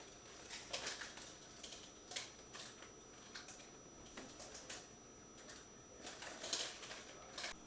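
Irregular light clicks and clatters of small hard objects being handled, coming in clusters, with the loudest about a second in and again near the end.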